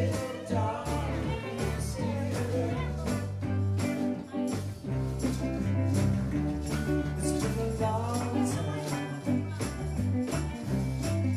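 Live band playing reggae: electric guitars, bass and drums in a steady groove, with a lead vocal line and jingling hand percussion on top.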